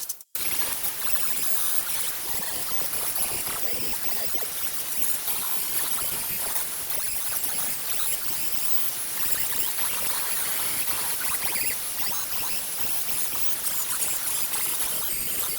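MIG welder arc crackling and hissing steadily as patch metal is welded in, with a momentary break just after the start.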